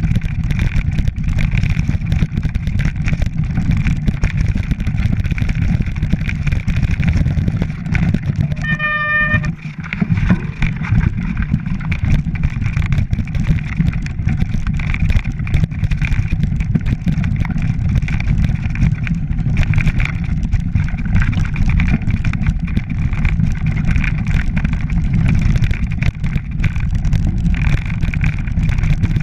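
Mountain bike rolling down a rocky, leaf-covered track: a constant low rumble with a steady clatter of sharp rattles from the bike over stones. About nine seconds in, a brief high squeal.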